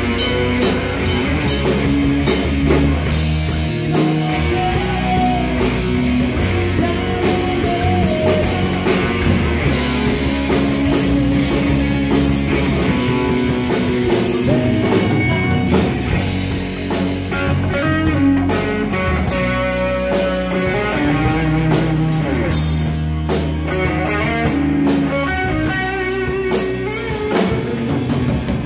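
Live rock band playing loud: guitars, bass guitar and a drum kit keeping a steady beat with cymbals.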